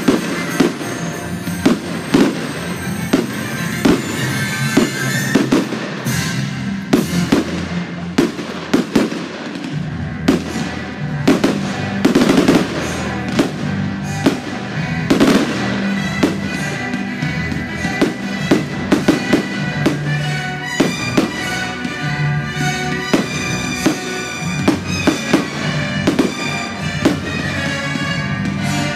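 Fireworks display: aerial shells and cakes firing and bursting in a rapid, irregular string of bangs, several a second, with music playing underneath.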